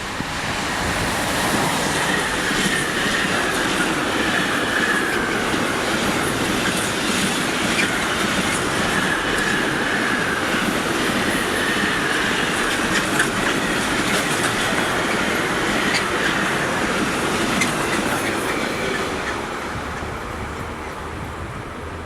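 Freight train of ultra-low container wagons rolling past at speed, wheels clattering over the rail joints with scattered clicks and a wavering high whine from the wheels, steady for some twenty seconds and easing slightly near the end.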